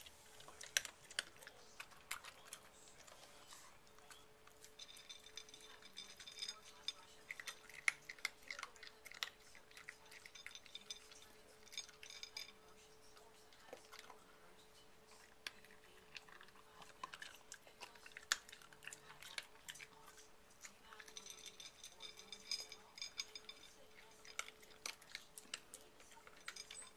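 Shih Tzu eating dry kibble off a ceramic plate: faint crunching and irregular small clicks of kibble and teeth against the plate.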